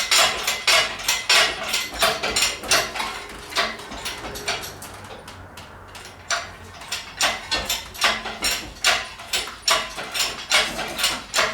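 Irregular metal clanking, clinking and knocking as a turbocharger and its oil feed line are worked loose and lifted out of the engine bay, with a brief lull about halfway through.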